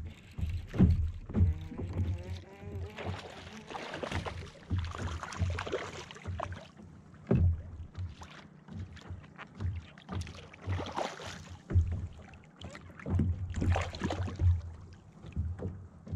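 Lake water slapping and sloshing against a plastic kayak hull in irregular low knocks, with several stretches of splashing.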